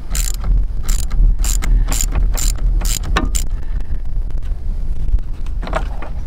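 Ratchet with a 10 mm socket on a short extension loosening the bolt on a truck's negative battery terminal, giving a run of short ratcheting bursts about two a second that stop about three and a half seconds in.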